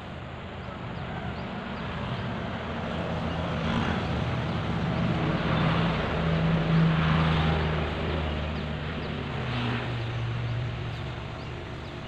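A motor vehicle's engine passing by, growing louder to a peak about six to seven seconds in, then fading as its pitch drops.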